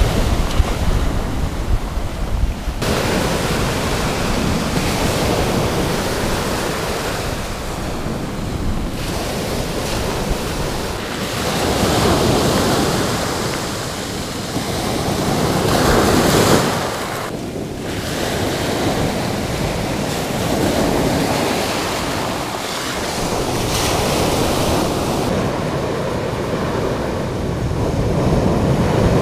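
Rough sea surf breaking and washing up a cobble beach, swelling and easing every few seconds, with wind buffeting the microphone.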